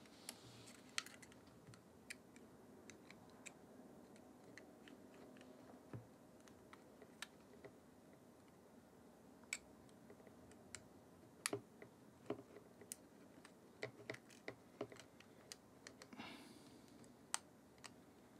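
Faint, irregular small clicks and taps of plastic and metal parts as a Nikon Z50's rear screen assembly is handled and pressed against the camera body.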